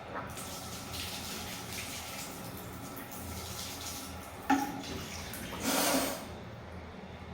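Tap water running into a wash basin, with a sharp nose blow about four and a half seconds in and a longer, forceful nose blow just before six seconds, after which the water stops.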